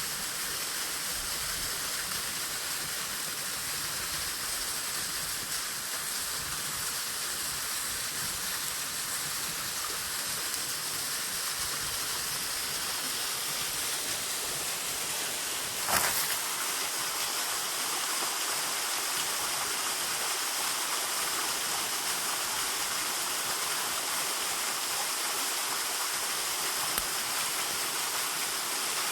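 Steady rushing of falling water from a waterfall, with one short sharp snap about halfway through.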